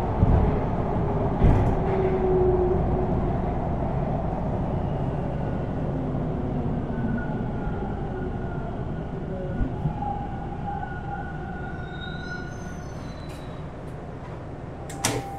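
TTC subway train running in the station: a steady rumble with faint whining tones that slowly gets quieter, like a train slowing as it pulls in. There is a sharp click near the end.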